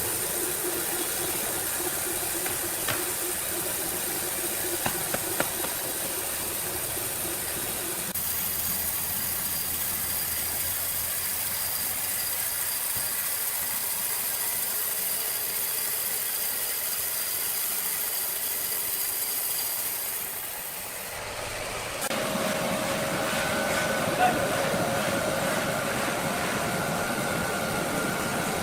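Sawmill machinery running with a steady, hissing mechanical noise, changing abruptly twice as the sound of one machine gives way to another; in the last part a steady motor hum with a whine over it.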